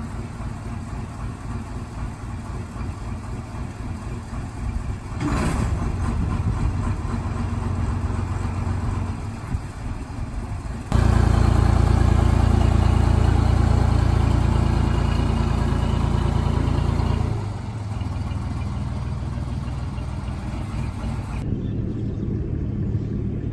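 Canal workboat's engine running steadily, growing louder about halfway through as it works harder, then easing back.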